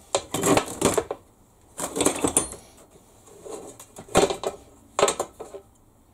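Metal parts being handled and knocked together on a workbench: short bursts of clinking and clattering, about five clusters a second or so apart.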